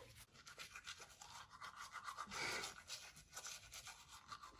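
Quiet room tone with faint scattered ticks and a soft swell of rustling about halfway through.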